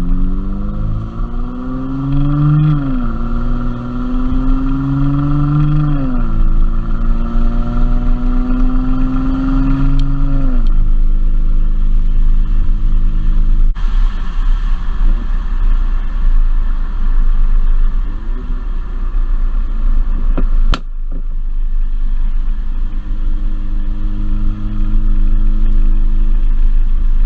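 Mercedes-Benz C400's twin-turbo V6 accelerating through the gears: the engine note climbs, drops back at upshifts about three and six seconds in, and climbs again. About ten seconds in it settles to a steady cruise. There is a single sharp click about twenty seconds in.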